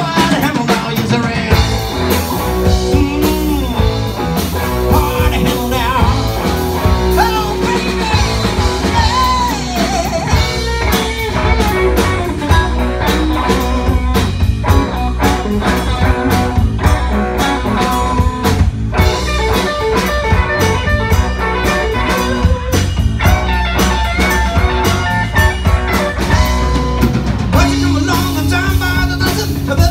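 Live rock band playing a loud blues-rock song, with electric guitars over a steady drum-kit beat.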